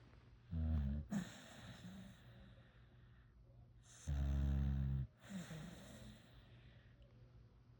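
Sleeping pit bull–Labrador mix puppy snoring: two low-pitched snores, a short one near the start and a longer, louder one about four seconds in.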